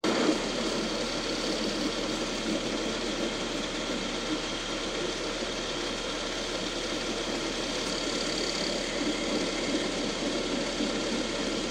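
A fire truck's engine idling, heard from inside its cab, mixed with the steady running noise of a rapid-transit train passing through the street crossing in front. The sound stays even throughout, with no siren or horn.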